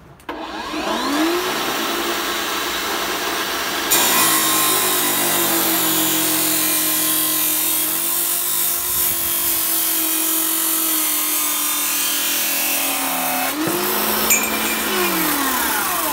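Makita cordless 14-inch cut-off saw, running on two 18 V LXT batteries (36 V) with an abrasive metal-cutting disc. The motor spins up with a rising whine and runs free for a few seconds, then the disc goes into a metal tube and grinds through it, louder and steady, for about ten seconds. Near the end the disc breaks through, the pitch rises again as the load comes off, then falls away as the motor winds down.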